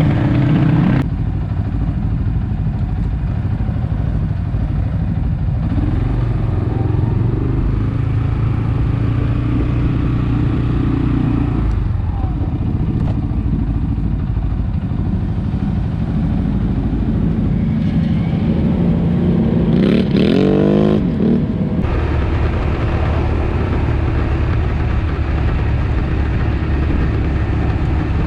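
ATV engine running under way, its pitch shifting with the throttle, with a sharp rev that climbs steeply about twenty seconds in before easing off.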